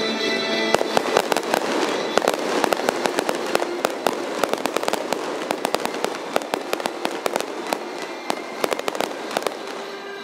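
Aerial fireworks display: a dense, rapid string of bursts and crackling pops that thins out toward the end. Music cuts off about a second in, as the crackling starts.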